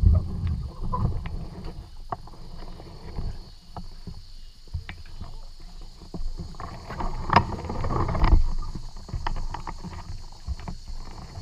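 Irregular knocks, bumps and rattles of a fishing kayak being handled from the dock, heard through a camera mounted on the boat, with a cluster of louder knocks about seven to eight seconds in.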